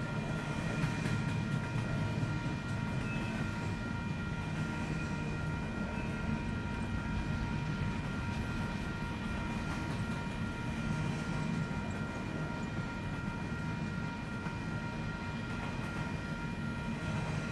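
Double-stack intermodal container train rolling past at speed: a steady rumble of steel wheels on the rails, with a few faint, thin, steady high tones over it.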